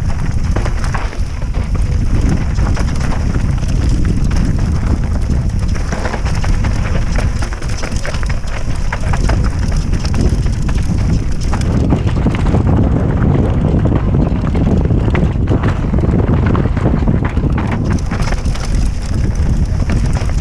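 Wind buffeting the microphone of a helmet-mounted camera on a mountain bike descending a rocky trail, with a continuous clatter of knocks and rattles from the tyres and bike running over loose rock.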